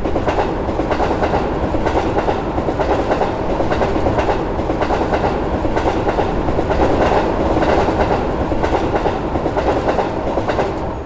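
A train passing, its wheels clacking over the rail joints in a steady run; it dies away near the end.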